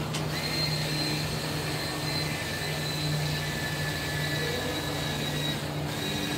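An electric motor runs steadily: a low hum under a high whine that sags slightly in pitch and drops out for a moment near the end.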